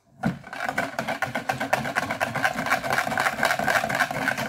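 Metal balloon whisk beaten fast in a plastic jug of instant pudding mix: a rapid, even clatter of whisk strokes against the jug's sides and bottom.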